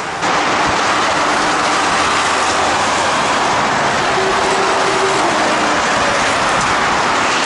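Loud, steady noise of fast freeway traffic, a semi-truck and cars, passing below.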